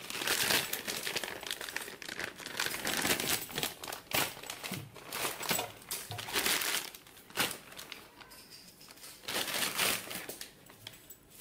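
Clear plastic wrapping of a soldering iron handle crinkling and rustling in irregular bursts as it is torn open and the handle and cord are pulled out.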